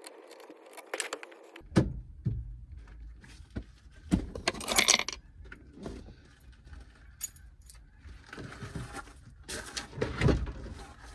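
Scattered sharp clicks, rattles and scrapes of hands and tools working a car's interior door panel and its fittings loose, with louder clusters about two, four to five and ten seconds in.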